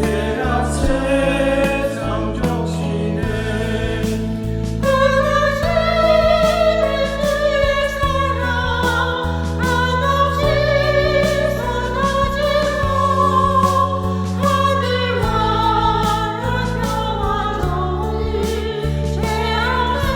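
Church choir singing an anthem in Korean, the voices holding long notes that move together every second or two over a steady low accompaniment.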